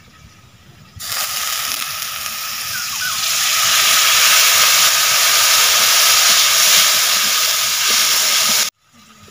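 Water poured into a hot iron kadhai of frying onion-garlic-spice masala, sizzling loudly and throwing up steam. It starts suddenly about a second in, grows louder around three seconds and cuts off abruptly near the end.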